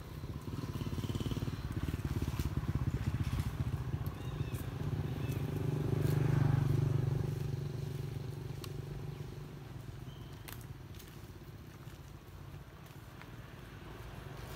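A motor vehicle's engine passing: a low rumble that grows louder to a peak about halfway through, then fades away.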